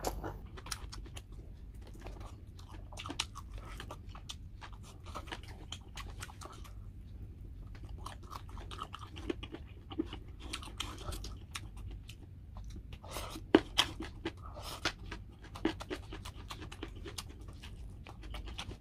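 Close-up mouth sounds of eating a meal of smashed fried chicken with raw vegetables: irregular chewing, crunching and wet clicks, with one sharper crunch about two-thirds of the way through.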